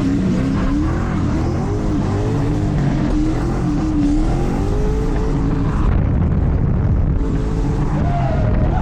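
2007 Ford Mustang's engine revving hard under driving, its pitch rising and falling several times as the throttle is worked.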